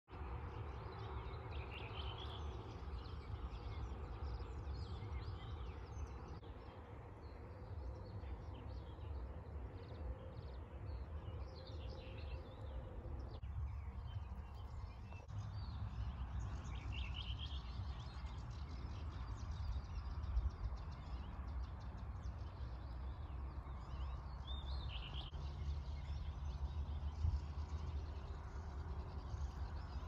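Outdoor garden ambience: small birds chirping and singing now and then over a steady low rumble.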